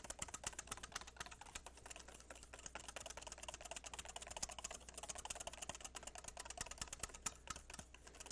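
Wire whisk beating mayonnaise by hand in a stainless steel bowl, the wires clicking against the metal in a rapid, even rhythm.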